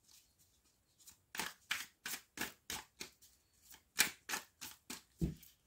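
A deck of oracle cards being shuffled by hand: an irregular run of soft card slaps, about three a second, starting about a second in, with a duller knock near the end.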